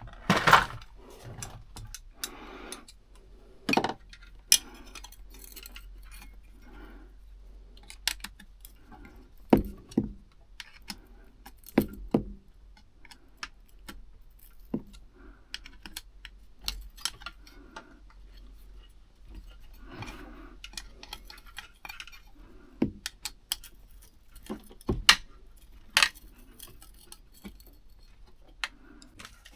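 Irregular metallic clicks, clinks and small knocks from hand tools and small metal fittings being handled, with a few sharper knocks standing out, over soft rustling.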